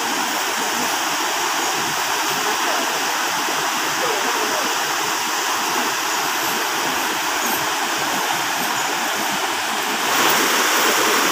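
Rapids of a swollen, muddy river rushing over boulders: a steady sound of water, growing a little louder about ten seconds in.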